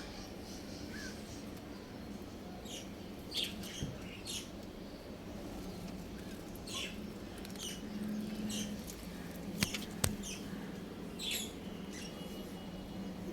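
Scattered short, high-pitched bird chirps, coming in little clusters of two or three, over a low steady hum, with two sharp clicks near the middle.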